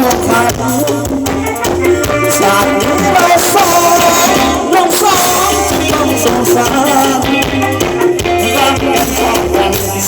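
Thai ramwong dance song: a singer over a band with a steady, repeating bass line.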